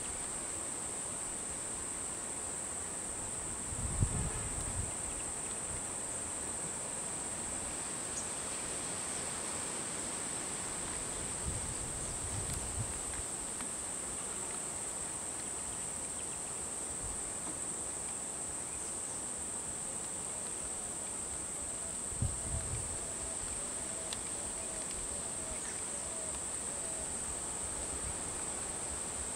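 Insects droning steadily at one high pitch, without a break. A few soft low thuds come through about 4, 11 and 22 seconds in.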